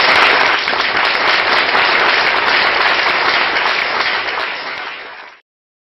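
Audience applauding: dense, steady clapping that eases a little and then cuts off abruptly about five seconds in.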